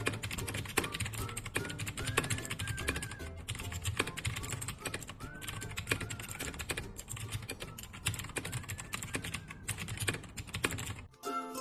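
Fast typing on a mechanical keyboard: a dense, continuous stream of key clicks, with background music underneath.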